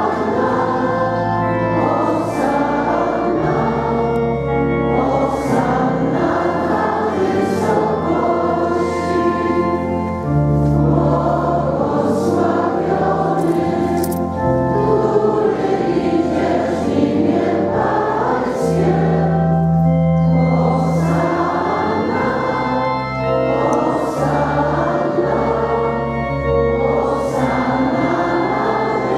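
Many voices, priests and congregation, singing a church hymn together, accompanied by organ holding long bass notes that change every few seconds.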